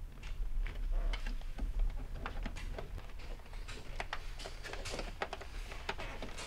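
Light clicks and rustles of a wiring cable and harness being handled and fed through a car door, over a steady low hum.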